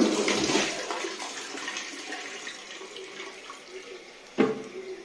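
Toilet flushing: a loud rush of water into the bowl that slowly dies away over about four seconds, followed by a single short knock.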